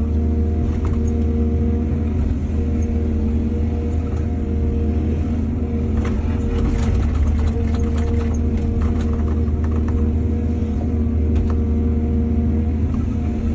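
Excavator's diesel engine running steadily with a deep rumble, with scattered clanks and rattles between about six and ten seconds in.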